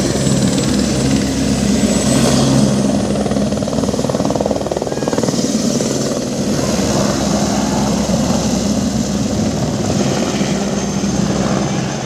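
Helicopter lifting off and flying away: a steady rotor beat with a high turbine whine. The low rotor note weakens after about four seconds as the helicopter climbs off.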